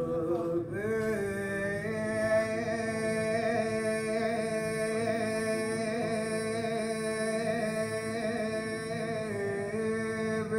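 Music of long held notes that shift slowly in pitch, with no beat.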